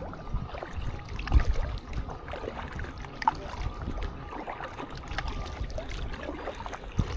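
Kayak paddling on a river: the paddle dipping and pulling through the water, with irregular small splashes and drips.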